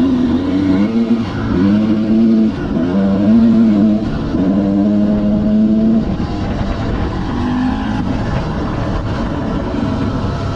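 Dirt bike engine under throttle, its pitch repeatedly rising and dropping as the rider revs and shifts, with a long steady pull between about four and six seconds in.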